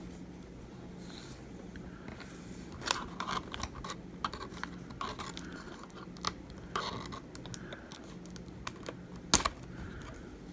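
Prying tool clicking and scraping against the glued-in battery inside an iPhone 7 Plus as it is worked at. There is an irregular scatter of light clicks, with one sharper click about nine seconds in.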